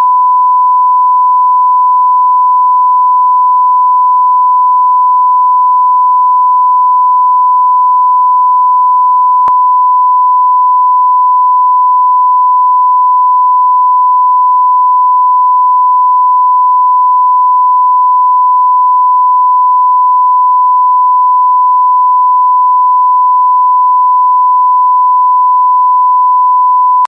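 A 1 kHz line-up test tone: one pure, loud, unbroken beep held for about 27 seconds that cuts off suddenly, with a faint tick about nine seconds in.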